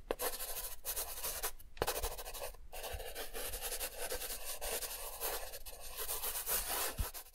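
Marker scratching across a board in continuous writing strokes, broken by a few brief pauses where it lifts.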